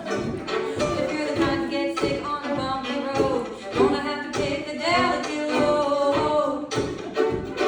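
A song being sung live over a strummed acoustic string instrument, with the strums falling in a steady rhythm under the voice.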